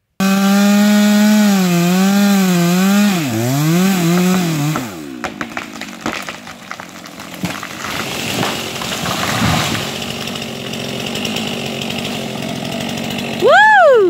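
Chainsaw running at high revs, its pitch wavering as it cuts through a tree's trunk, then slowing and dropping away about 5 s in. The tree then goes over with cracking and snapping of wood and breaking branches, and near the end a chainsaw revs up and down once briefly.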